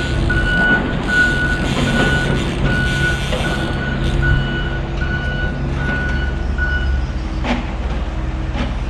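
Back-up alarm of construction machinery beeping at an even pace, a bit under once a second, and stopping about two seconds before the end. Under it runs a steady low rumble, and two short knocks come near the end.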